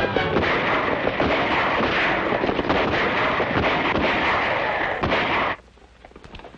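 Rapid, overlapping gunfire in a battle scene, many shots crowding together, which cuts off abruptly about five and a half seconds in.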